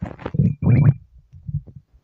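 A girl's stomach growling and gurgling in a run of uneven bursts, the loudest a little before the middle, followed by a few fainter gurgles.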